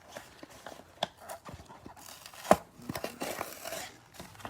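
Cardboard hanger box of trading cards being torn open by hand: a few small clicks, one sharp snap about two and a half seconds in, then a stretch of crackly tearing.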